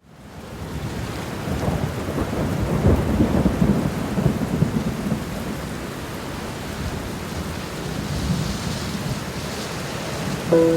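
Steady rain fading in, with a rumble of thunder that swells from about a second and a half in and dies away a few seconds later. Sustained musical notes come in just before the end.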